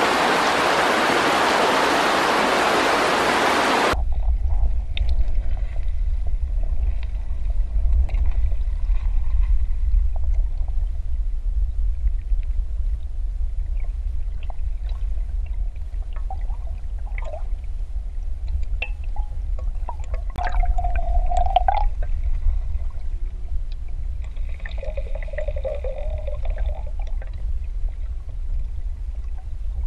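Shallow river riffle rushing over stones, heard above the water. About four seconds in the sound cuts to underwater, where the current becomes a low muffled rumble with scattered faint clicks and knocks. Twice in the second half a brief humming tone sounds.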